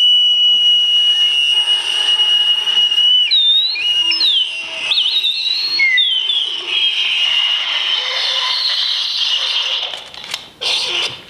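Experimental electronic sound-art performance: a steady high whistling tone that breaks about three seconds in into gliding, warbling pitches, then gives way to a hiss, with a couple of sharp knocks near the end.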